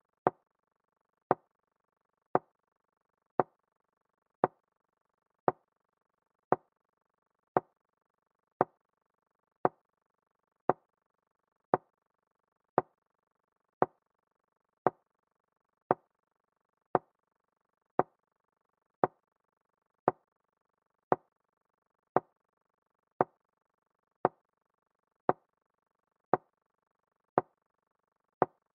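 Chess move sound effect: a short wooden click of a piece being set down, repeated evenly about once a second as each move of the game is played back.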